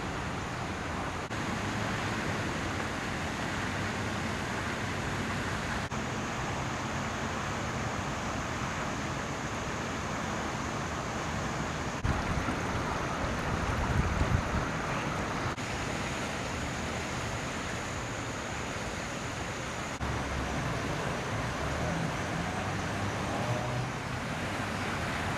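Rushing floodwater of an overflowing creek: a steady broad rush of water, with a stronger low rumble for a few seconds around the middle.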